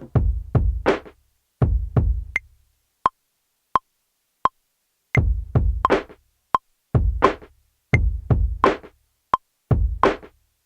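Beat from a Native Instruments Maschine, using drum sounds from the Golden Kingdom expansion: deep, booming kicks and snare hits with short, sharp clicks. About two and a half seconds in, the kicks and snares drop out, leaving three lone evenly spaced clicks. The full beat comes back in about five seconds in.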